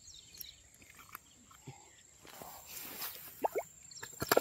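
Handling noises of a caught fish being unhooked and put down in grass: rustling with scattered small clicks, two sharp slaps about three and a half seconds in, and a loudest quick cluster of knocks just before the end.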